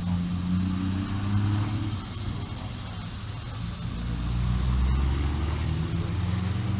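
A car's engine running steadily with road noise, swelling into a heavier low rumble a little past halfway.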